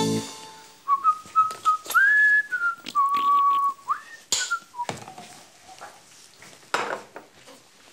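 A man whistling a short tune, a run of clear single notes stepping up and down from about a second in to about five seconds in, with light clicks and knocks of food being handled. The tail of jazz music dies away at the very start.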